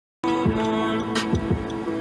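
Background music with held notes and a few deep bass-drum hits, starting a moment in.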